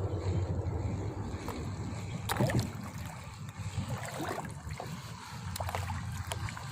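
Water sloshing and trickling, with a low wind rumble on the microphone at first and one louder splash about two seconds in, followed by small drips and clicks.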